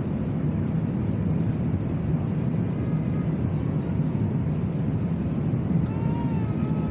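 Jet engines of an Airbus A350 airliner: a steady low rumble with a hiss above it, holding level throughout.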